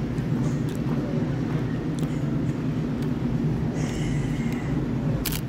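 Steady low rumble of outdoor background noise, with a few faint clicks and a sharp click near the end.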